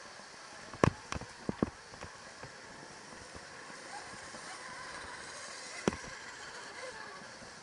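Electric dirt bike ridden over a bumpy dirt track: a steady rushing of tyres and air with sharp knocks and rattles over the bumps, a quick run of them about a second in and one more near the end.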